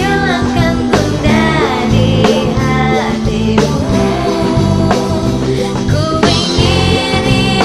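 A band playing a song, with a lead singer over bass and drums.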